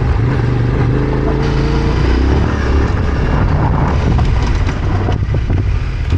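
Yamaha Ténéré 700 motorcycle's 689 cc parallel-twin engine running under way off-road, its note rising and falling with the throttle and dropping off about five seconds in.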